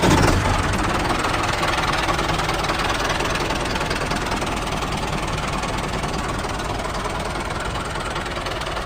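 An engine running steadily, starting abruptly.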